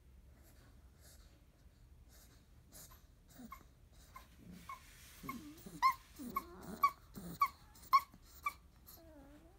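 A 30-day-old Labrador retriever puppy whimpering and squeaking in its sleep. Soft noises build to a run of short, sharp squeaks about two a second, then a small falling whine near the end.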